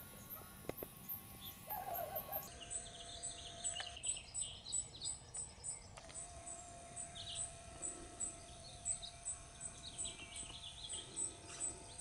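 Faint birdsong of scattered small-bird chirps, over a cricket's even high chirping at about two or three pulses a second.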